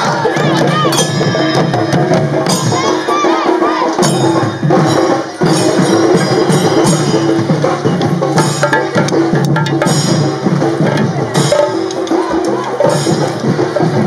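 Procession drummers beating barrel drums with sticks, a dense, fast run of strikes over a steady held droning tone.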